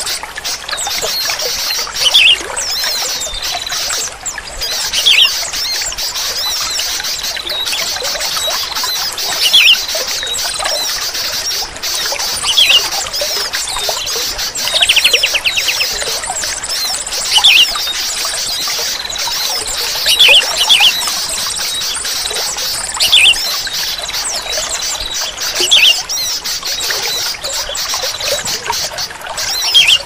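Sooty-headed bulbul (kutilang) giving short, loud calls every two to three seconds, with a quick trill about halfway through, over a steady trickle of running water.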